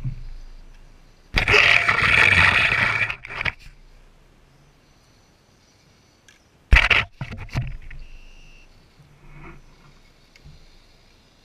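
Axial SCX10 radio-controlled crawler driving through dry brush and sticks: two bursts of crunching and scraping, the first about two seconds long, the second shorter, about seven seconds in, after a short thump at the start.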